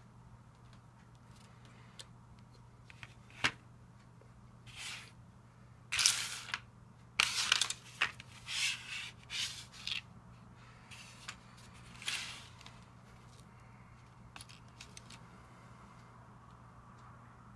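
Loose plastic Lego bricks being handled and set down on a tabletop: a sharp click, then a run of short clattering rustles in the middle, and one more near the end, over a faint steady hum.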